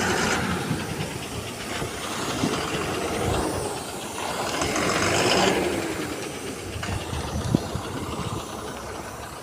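Heavy diesel machinery running under load, with swells of hissing noise that are loudest about five seconds in, and a sharp click near the end.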